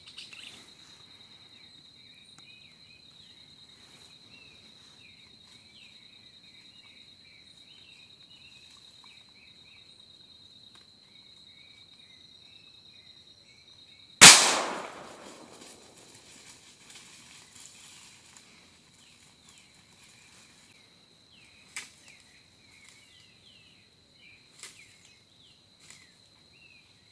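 A single loud gunshot about halfway through, dying away in a trailing echo, over the steady high trill of insects and scattered chirps.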